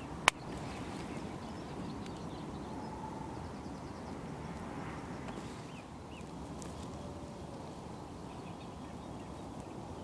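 Steady outdoor background noise over open farmland, with faint short bird calls. A single sharp crack sounds just after the start.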